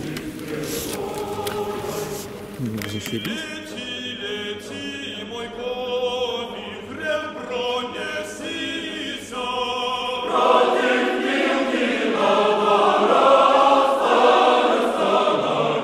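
A choir singing a Cossack folk song, sustained sung notes with no instruments standing out; it grows fuller and louder about ten seconds in.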